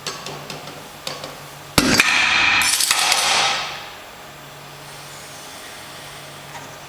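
Rolling Thunder grip handle with its loaded plates dropped back onto a stack of weight plates. A few light metal clinks, then, just under two seconds in, a loud metal crash that rings and rattles for about a second and a half before dying away.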